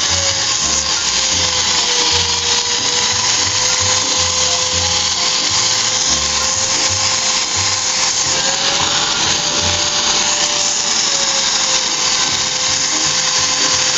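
Handheld electric polisher with a diamond polishing pad grinding terrazzo, its motor whining steadily under load with the pitch sagging and recovering slightly as it is pressed into the floor.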